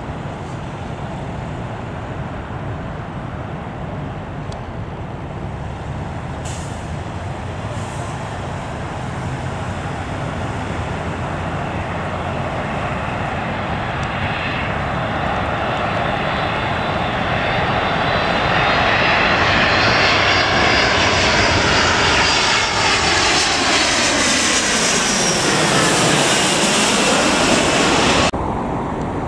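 A jet airliner passes overhead at the airport. Its engine rumble and whine swell over about twenty seconds and bend down in pitch as it goes over, above steady road traffic. The sound cuts off suddenly about a second before the end.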